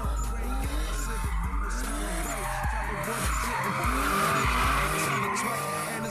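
A car drifting on asphalt: its engine revs up and down while the tyres squeal and skid, the squeal loudest about four seconds in. Hip-hop music with a heavy bass plays underneath.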